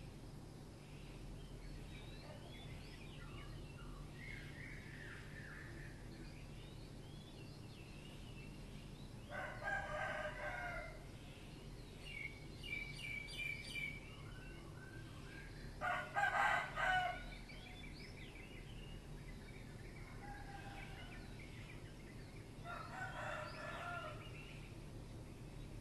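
Rooster crowing three times, about six seconds apart, the middle crow the loudest. Thinner, higher bird calls come between the crows, over a steady low hum.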